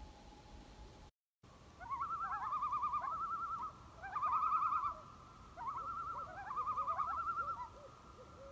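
Common loon calling: the end of a long steady wail, then after a brief silent break three bouts of the rapid, wavering tremolo call.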